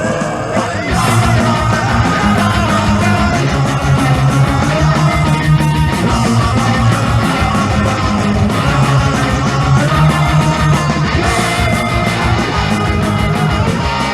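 Deutschpunk rock music from a tape recording: a full band with electric guitar playing loud and steady, filling out about a second in.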